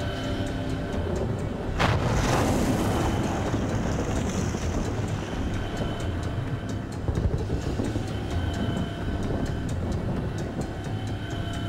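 Animated-series soundtrack: a deep, steady rumbling sound effect under background music, with a sudden swell of noise about two seconds in.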